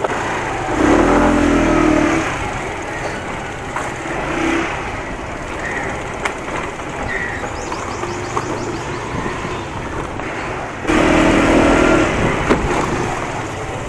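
Motorcycle engine running at low riding speed. Its note rises and gets louder twice, about a second in and again near the end, as the throttle opens.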